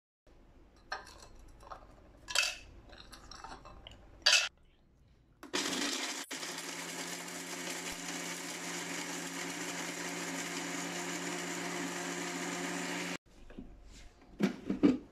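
A few clicks and knocks of the jar and spices being handled, then an Anex food processor's grinder attachment running steadily for about eight seconds, grinding whole spices into garam masala powder, and cutting off suddenly. A few knocks follow as the jar is taken off.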